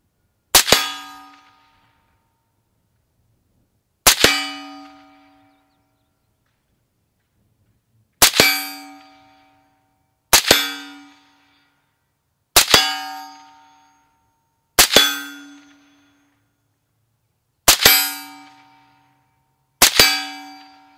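Eight single rifle shots from a Stag 2TL AR-15, fired at an uneven pace about two to four seconds apart. Each crack is followed almost at once by the clang of a hit steel target, which rings at several steady pitches for about a second.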